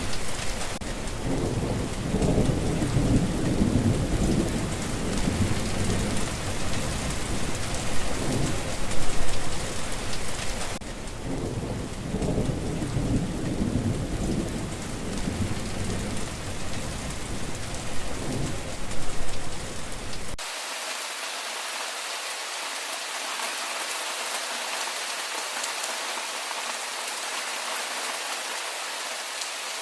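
Steady heavy rain with thunder rumbling and rolling through it. About two-thirds of the way in, the thunder cuts off abruptly, leaving only an even rain hiss.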